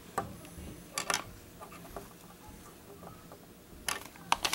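A handful of light clicks and taps from small plastic Lego minifigures being handled and set down on a wooden tabletop. The clicks come in a pair about a second in and a cluster near the end.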